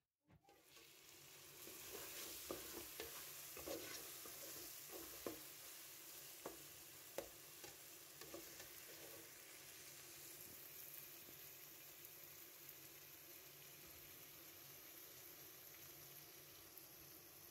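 Diced vegetables frying in oil in an aluminium pot, a faint steady sizzle. A metal spoon stirring clicks and scrapes against the pot through the first half.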